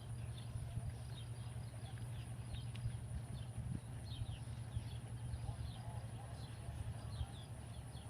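Small birds chirping repeatedly in short falling notes over a steady low rumble.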